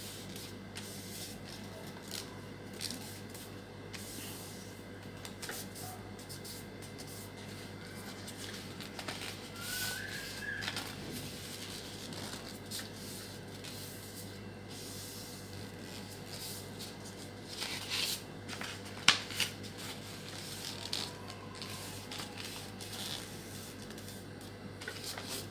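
A sheet of gift paper being folded into pleats and pressed flat by hand: faint paper rustling and rubbing, with a few sharper crinkles about eighteen to nineteen seconds in, over a steady low hum.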